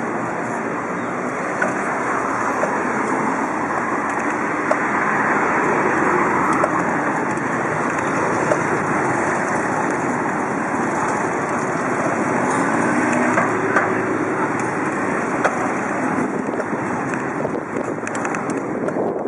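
Wind buffeting the microphone of a camera on a moving bicycle, a steady rushing noise, with city street traffic underneath and a few small clicks.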